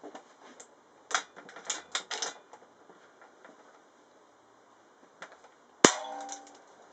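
A quick run of metallic clicks about a second in, as the Air Arms S410 PCP air rifle is cocked and loaded. Near the end comes a single sharp crack of the rifle firing without its silencer, with a brief ring after it.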